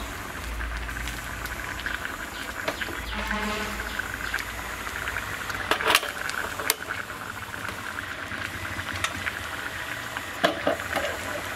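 Gas stove and steel cookware being handled. There are two sharp clicks about six seconds in as the burner knob is turned, then a clatter of a steel pot on the burner grate about ten seconds in, over a steady hiss.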